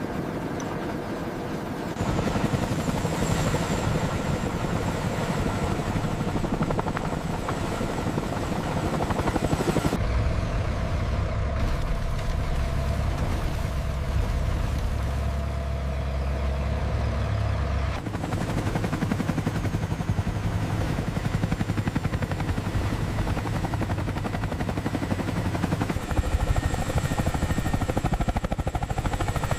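Tandem-rotor CH-47 Chinook helicopter running at heavy lift with a slung load, a steady rapid rotor beat over turbine noise. The sound shifts abruptly about every eight seconds.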